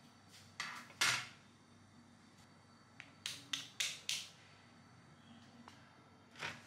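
Freshly roasted sweet potatoes' crisp skins crackling as they are handled and set down on a wire mesh tray. There are a few short, sharp crackles: the loudest about a second in, a quick run of four between about three and four and a half seconds in, and one more near the end.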